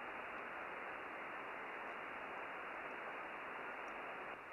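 Steady hiss of band noise from a Yaesu FTDX101D receiver tuned to upper sideband on the 20-metre band, thin and with no high end because of its 3 kHz receive filter; no station is heard as the sub receiver is tuned.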